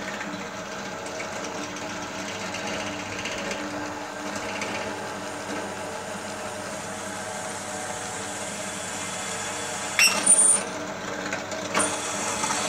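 A 250 W bench drill press motor runs steadily as the bit is fed down into a steel bar. About ten seconds in there is a brief loud metallic squeal and clatter, the sign of the bit slipping in its loosely hand-tightened chuck.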